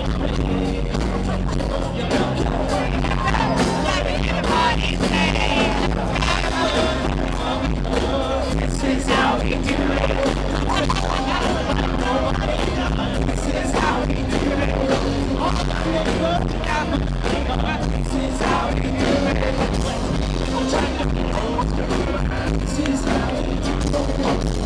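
Live band with bass guitar and drums playing loudly and steadily, with a man singing lead through a handheld microphone over the stage sound system.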